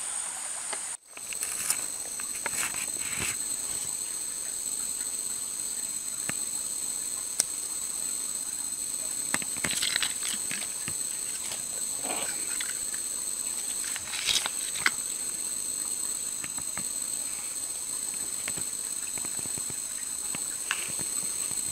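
Steady, high-pitched chorus of insects buzzing in several overlapping tones, with scattered clicks and rustles from hands working close by.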